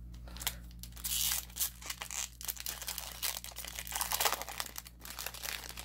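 Foil wrapper of a Magic: The Gathering Core 2021 collector booster pack being torn open by hand, a run of irregular crinkling and tearing crackles.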